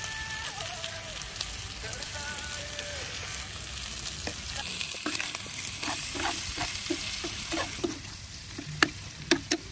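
Masala-coated chicken pieces sizzling steadily in an oiled pan. From about halfway a metal spoon stirs and scrapes them, with three sharp clicks near the end.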